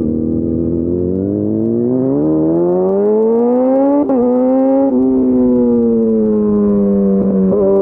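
Yamaha FZ1's inline-four engine pulling under load: its note rises steadily for about three seconds as the bike accelerates, breaks briefly about four seconds in, then eases slowly lower, with another short dip near the end.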